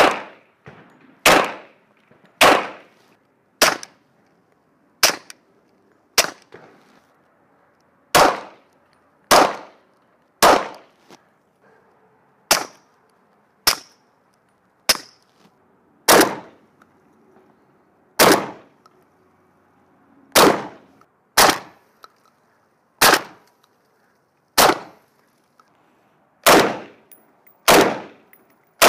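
A run of single gunshots, about twenty of them, spaced roughly a second apart, each a sharp report with a short ringing tail. They come from an HK Mark 23 .45 pistol fired without a suppressor, an HK VP9 9mm pistol fired through an Osprey 9 suppressor, and a CZ Bren .223 rifle fired without a suppressor near the end.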